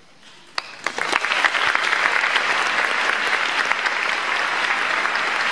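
Audience breaking into applause at the end of a choral piece: a single clap about half a second in, then many hands joining within a second into steady clapping.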